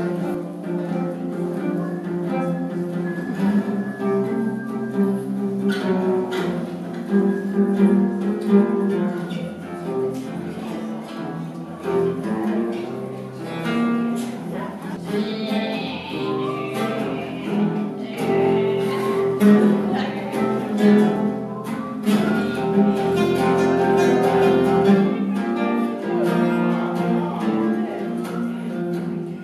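Instrumental background music led by plucked acoustic guitar, playing a steady melody.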